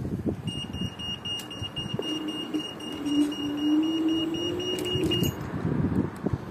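The scooter's dual brushless hub motors whine as it pulls away, the pitch creeping up as it gathers speed, under a high, rapid electronic beeping that stops about five seconds in, with wind rumble on the microphone.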